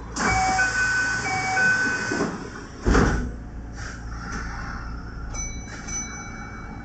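Kintetsu 1031-series train doors closing: a two-note chime sounds twice over a loud air hiss from the door engines, then the sliding doors shut with a single thump about three seconds in.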